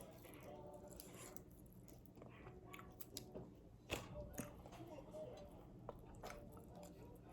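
Faint chewing and biting of a crispy fried chicken wing, with scattered soft mouth clicks and one sharper click about four seconds in.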